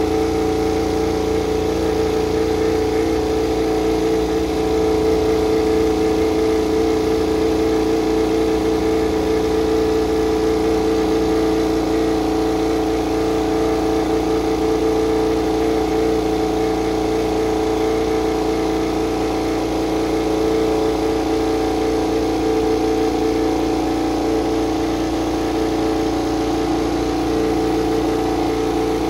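GasGas MotoGP bike's V4 racing engine (a rebadged KTM RC16) running at a steady fast idle while it warms up on its stand, with no blips of the throttle.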